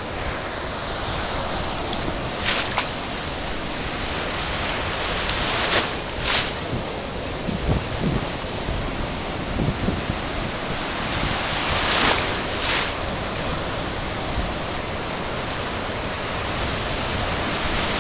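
Ocean surf washing in the shallows, with wind buffeting the microphone. Short sharp splashes come every few seconds, some in quick pairs.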